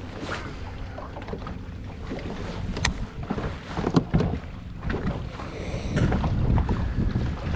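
Wind buffeting the microphone out on open water, with water lapping at the boat, and a few sharp clicks and knocks about three and four seconds in.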